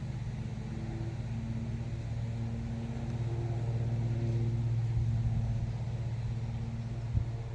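A steady low motor hum with a few even overtones, swelling a little in loudness through the middle.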